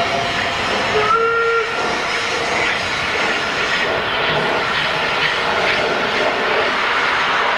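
Whistle of unrebuilt Bulleid Battle of Britain class 4-6-2 steam locomotive No. 34072 '257 Squadron': a short blast about a second in, followed by a steady loud hiss of steam from the locomotive.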